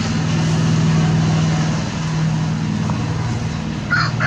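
An engine runs steadily at an even low pitch. A rooster starts crowing near the end.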